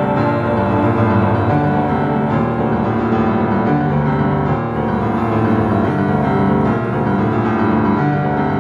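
Background music led by piano, with sustained chords.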